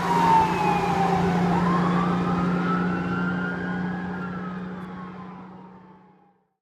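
Fire truck siren wailing over a steady low drone: the pitch dips, rises once, then slides slowly down as the sound fades away and stops about six seconds in.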